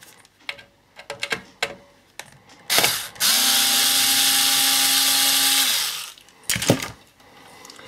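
Cordless electric screwdriver running steadily for about two and a half seconds, backing out the screw that holds a set-top box's circuit board down. Small handling clicks come before it and a couple of sharp knocks just after it stops.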